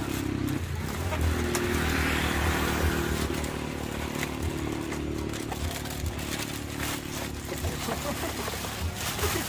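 Plastic wrapping crinkling and tearing as a parcel is unwrapped by hand, over a steady low engine-like hum.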